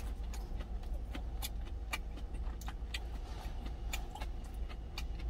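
Metal chopsticks clicking against a stainless-steel lunch tin, with chewing, as scattered sharp clicks over a steady low rumble from the idling truck engine.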